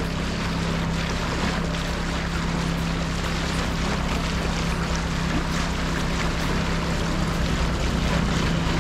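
Antila 24.4 sailing yacht's engine running steadily at low canal speed, a constant hum under an even hiss of water and wind.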